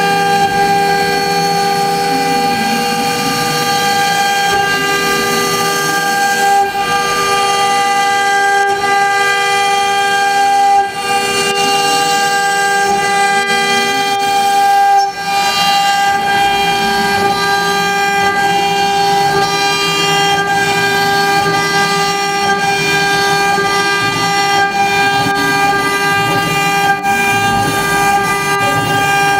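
CNC-1325 router spindle running with a steady, high-pitched multi-tone whine as its cutter mills a wooden board at a 6000 mm/min feed, with cutting noise underneath. The sound dips briefly twice about halfway through.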